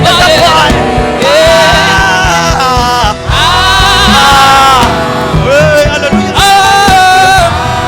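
Live gospel worship music: a choir singing long held notes, some with a wavering vibrato, over a band with steady drum beats.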